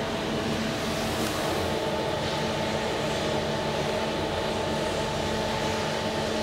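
SMW traction elevator car travelling down in its shaft: a steady hum and rumble with several constant tones, one higher whine joining about a second and a half in. The car reaches the lower floor near the end.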